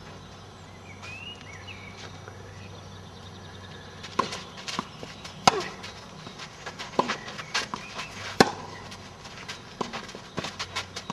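Tennis rally: sharp racket strikes on the ball with fainter bounces and footsteps on clay between them. The rally starts about a third of the way in, and the two loudest strikes fall about halfway through and about three-quarters through.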